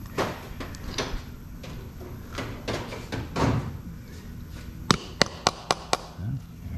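Hammer striking the aluminium layers of a three-piece racing cylinder head: a few dull knocks as the head is handled on the towelled bench, then five quick sharp taps, about four a second, to break apart the glued layers.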